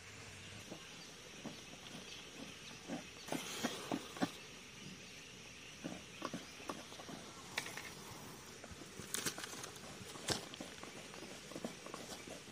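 Faint outdoor ambience with scattered light clicks and rustles from handling fire-starting materials: camphor tablets set and lit on a banana leaf, then a dry coconut frond laid over the flame.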